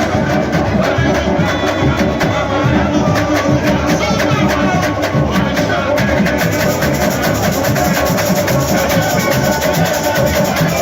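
Samba-enredo performed by a samba school's bateria: dense, fast, steady percussion with a sung melody over it, loud and continuous.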